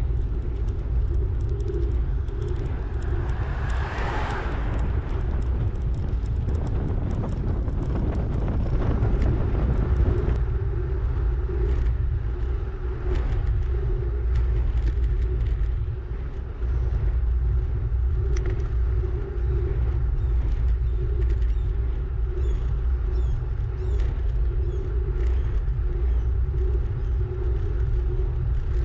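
Wind buffeting the microphone of a camera on a moving bicycle: a steady low rumble, with a brief louder rush of noise about four seconds in.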